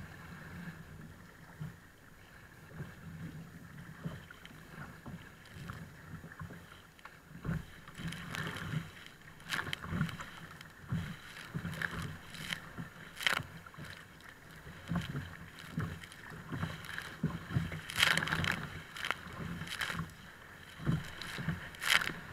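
Choppy water slapping and splashing against a kayak, in irregular splashes that grow louder and more frequent from about eight seconds in, with water spraying onto the camera near the end.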